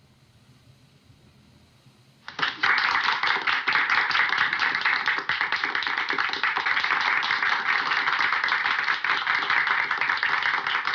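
Near silence, then about two seconds in an audience breaks into applause, many people clapping steadily.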